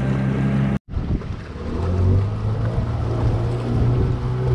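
Wooden longboat's engine running steadily, with water rushing along the hull. The sound drops out completely for a split second just under a second in.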